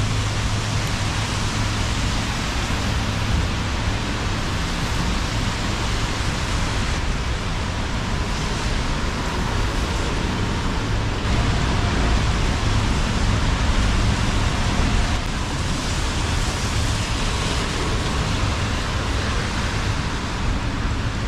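Steady rain and the hiss of city traffic on wet streets, an even wash of noise that grows a little louder about halfway through.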